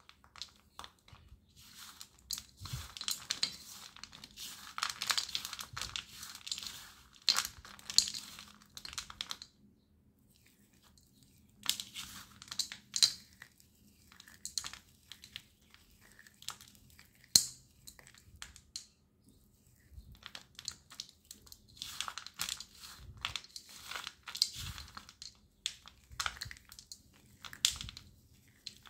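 Broken slate pencil pieces rubbed and stirred by hand on a steel plate: gritty scraping and clicking in spells of a few seconds, with short pauses between.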